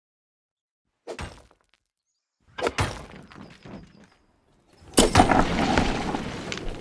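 Pickaxe blows breaking through rock: a dull knock about a second in, a cluster of sharper cracking knocks near the middle, then the rock bursting open about five seconds in with loud crumbling and spilling rubble.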